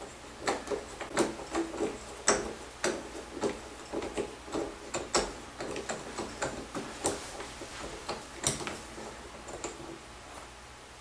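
Phillips screwdriver turning out the screw inside a Moen tub faucet's cartridge stem: a series of irregular sharp clicks, about two a second, that stop near the end.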